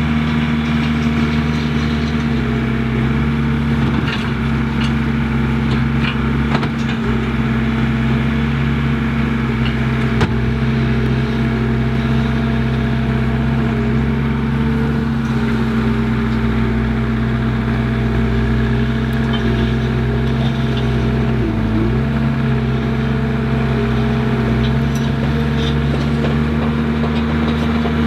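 Skid steer engine running steadily under work, its note sagging briefly a few seconds in and again about three-quarters of the way through as it takes load, with a few light knocks.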